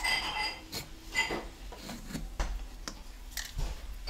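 Vegetable peeler scraping the skin off a raw potato in short, irregular strokes, with light clicks and knocks as the potato is handled.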